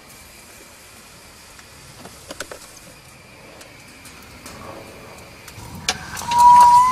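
Liquid nitrogen boiling off in an open tank with a faint steady hiss and a few small clicks. Near the end, as the valve fitting is put on to seal the tank, a loud steady whistle starts, rising slightly in pitch: nitrogen gas escaping through the fitting as pressure builds.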